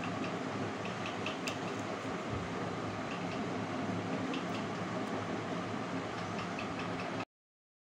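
Steady background room noise: an even hum and hiss with a few faint light clicks scattered through it, cutting off suddenly about seven seconds in.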